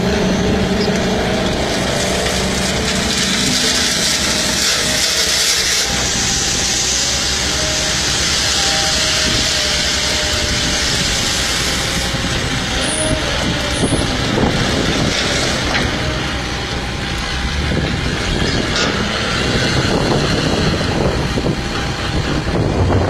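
Heavy truck and road traffic noise: a steady, loud rushing of engines and tyres with a few faint tones above it.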